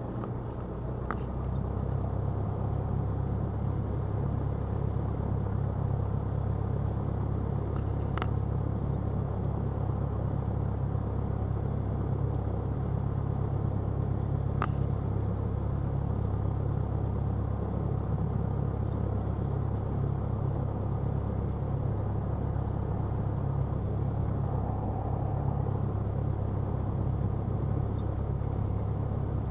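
Cessna 172 piston engine running steadily at low taxi power, a constant low hum heard from inside the cabin; it picks up slightly a second or two in. Two faint short ticks are heard partway through.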